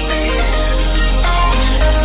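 Background music with a deep, held bass line that shifts to a new note near the end.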